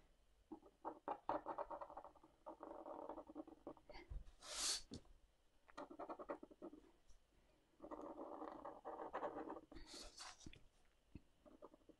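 Fine-tip pigment ink pen nib scratching over watercolour paper as an outline is drawn: faint runs of quick short strokes with brief pauses between them. There are two brief louder swishes, about four and a half seconds in and again near ten seconds.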